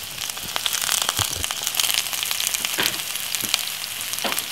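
Sliced bell peppers, onion and spring onion sautéing in olive oil in a frying pan: a steady high sizzle dotted with crackles and pops, with a few soft knocks.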